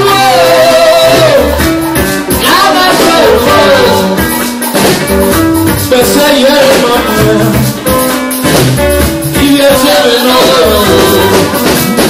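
Live band playing: electric guitars over a drum kit, with a man singing lead into the microphone.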